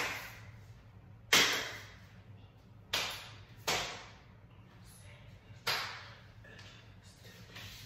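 Hand claps during a dance routine: five sharp claps at uneven intervals, each followed by a short echo.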